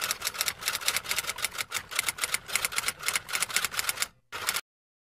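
Typewriter-style typing sound effect: a fast, steady run of key clicks, with a brief pause just after four seconds, a last short flurry, then an abrupt stop.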